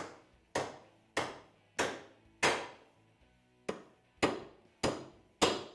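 Hammer blows on an aluminium seal driver, tapping an oil seal square into a KTM 690 / Husqvarna 701 aluminium crankcase half. Nine sharp metallic strikes about half a second apart, with a short pause near the middle, each ringing briefly.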